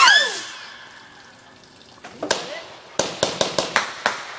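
A firework's sweeping whistle trails off at the start, then about two seconds in a quick run of sharp cracks, several a second, as firecrackers and fireworks go off.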